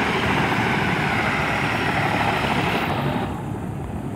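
Helicopter on the ground running down after landing, its turbine and rotor giving a steady rushing noise. About three seconds in, the higher hiss drops away suddenly and a lower rumble carries on.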